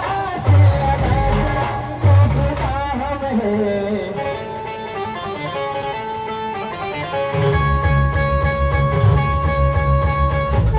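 Indian brass band music: a wavering melody line with a few heavy drum hits, then held notes over a steady drum beat that comes in about seven seconds in.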